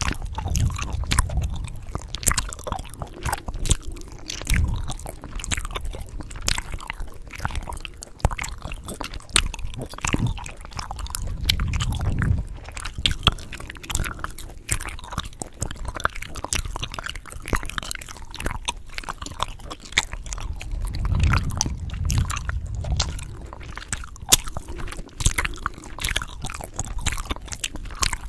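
Close-miked chewing gum: a steady run of wet smacking and sharp snapping clicks, with a few low thuds.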